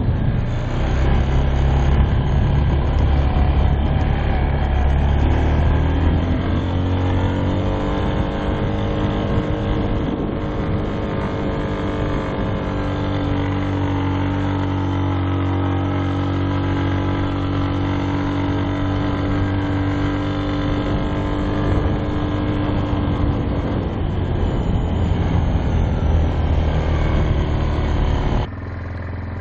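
ATV engine running under load on sand, its pitch rising about five seconds in and holding steady, then easing off in the last few seconds. Near the end it cuts suddenly to a quieter, steady engine sound.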